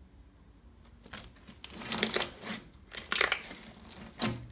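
Hands squeezing and pressing a slab of store-bought glitter slime with foam beads mixed in, making squelching noises in irregular bursts that start about a second in.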